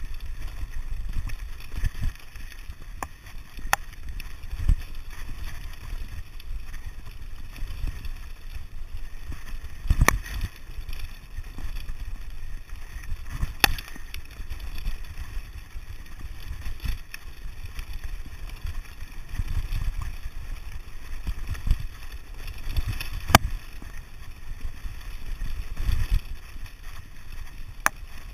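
Mountain bike rattling down a rough, stony track: a steady low rumble of tyres over rocks and ruts, broken by frequent sharp knocks and clicks from the bike as it hits stones. The loudest knocks come about ten, fourteen and twenty-three seconds in.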